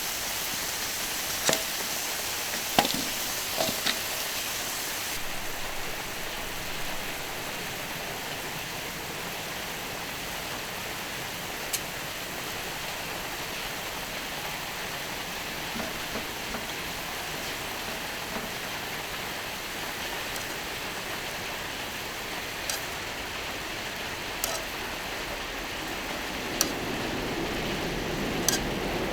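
Meat sizzling on an iron griddle over a campfire: a steady hiss with scattered sharp pops and crackles, several in the first few seconds and a few more near the end.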